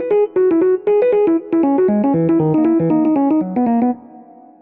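Background music: a quick keyboard melody of short, clipped notes that ends about four seconds in on a held chord, which fades away.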